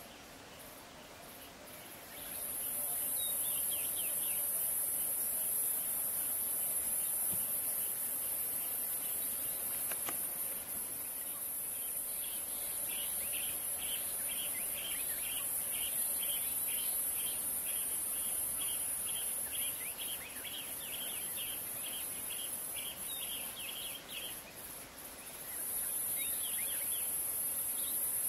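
Insects shrilling in a steady, very high-pitched drone that starts about two seconds in and breaks off briefly near the end before resuming. A bird calls through the middle, repeating a short note about twice a second.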